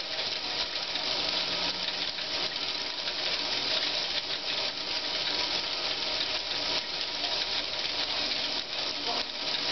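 Meccano figure-of-8 braiding machine running at its increased speed: a steady, dense clatter of metal gears and bobbin carriers circulating around their tracks.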